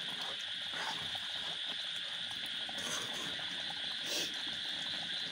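Duck curry simmering in a black iron kadai on a gas stove, stirred with a metal spatula at first, with faint small bubbling ticks. Over it runs a steady high-pitched drone.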